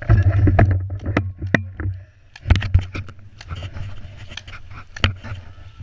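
Wind buffeting a body-worn action camera's microphone in a gusty low rumble, with scattered sharp clicks and snaps throughout.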